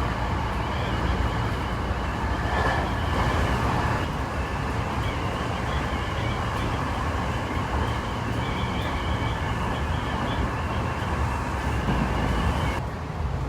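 Cabin noise of a Tokyo Metro 7000 series commuter train running between stations: a steady rumble of wheels on the rails with a high, steady whine over it that stops near the end.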